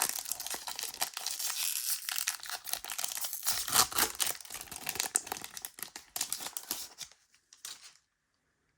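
Foil wrapper of a Pokémon card booster pack being torn open and crinkled, with dense rustling and crackling that dies away about seven seconds in.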